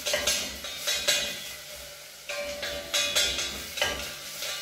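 Wooden spoon stirring onions frying in olive oil in a stainless steel pot, scraping and knocking against the pot every half second to second over a faint sizzle.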